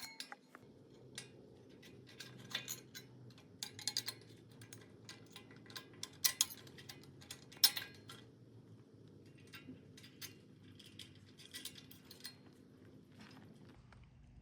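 Metal tools and hardware clinking and clicking as they are handled, in scattered sharp knocks, over a faint steady hum that stops near the end.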